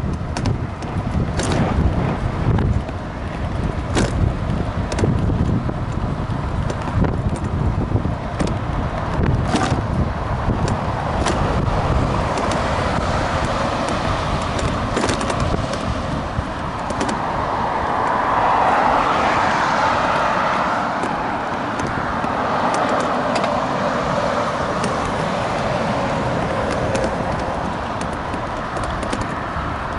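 Electric scooter ride noise on a paved cycle path: a steady rumble with frequent sharp clicks and rattles over the surface. Traffic on the highway alongside runs underneath, with one vehicle passing and swelling louder about two-thirds of the way through.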